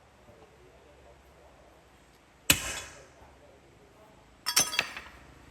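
Metal striking metal: one sharp clank with a short ring about two and a half seconds in, then a quick run of two or three more ringing clanks near the end.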